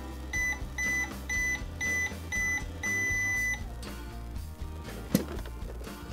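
Toy microwave's electronic beeps: five short high beeps, then one longer beep, over background music. A sharp click about five seconds in.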